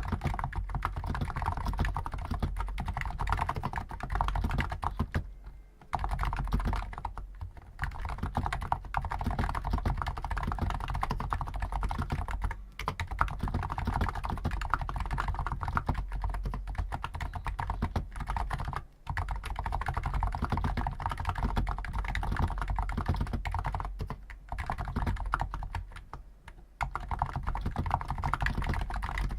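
Typing on a stock Hansung GTune CHL5 XRGB non-contact (capacitive) keyboard with 50 g switches: quick, steady runs of keystrokes with short pauses now and then.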